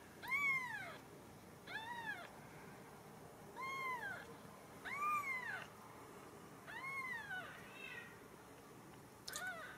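Newborn Ragdoll kittens mewing: about six thin, high cries, each rising and then falling in pitch, one every second or two.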